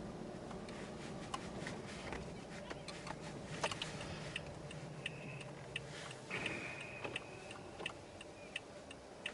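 Inside a Toyota Aqua's cabin while driving: a low steady rumble with scattered, irregular sharp ticks and clicks, and two short high squeaks around the middle.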